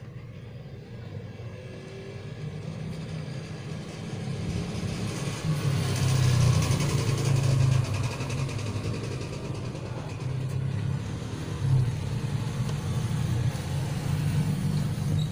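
A motor vehicle's engine running, rising in level about five seconds in and staying loud.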